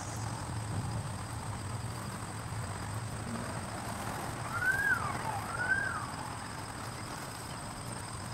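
Outdoor ambience with a steady low rumble, and a bird giving two short whistled notes, each rising then falling, about halfway through.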